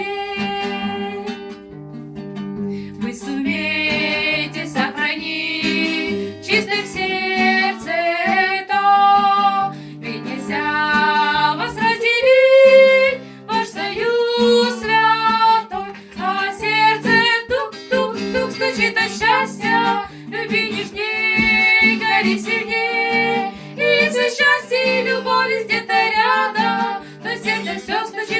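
A woman singing a melodic song over acoustic guitar accompaniment, with long held notes that waver in pitch above a steady guitar part.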